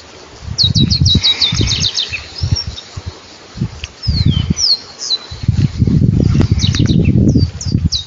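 Saffron finch singing: quick runs of high, downward-slurred notes, about ten in a row near the start and again near the end, with a few longer falling whistles between. Irregular bouts of low rumbling noise, louder than the song, come and go underneath.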